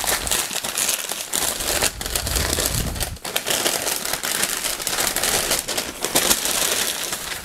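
White packing paper rustling and crinkling continuously as it is unwrapped by hand.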